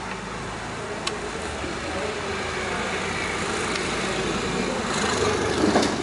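Hot water is poured from a small metal cup onto a car battery's carbon-crusted terminals and they are scrubbed, over a steady background rumble and hiss. A couple of light clicks come about a second in and near the end.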